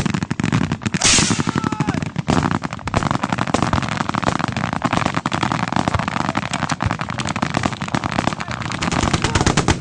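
Several automatic weapons firing at once in rapid, overlapping shots with no pause, and a short loud hiss about a second in.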